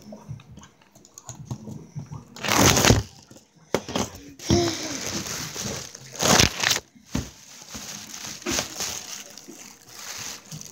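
Rustling and bumping of hands handling the recording phone right at its microphone. There are loud bursts a little over two seconds in and again about six seconds in.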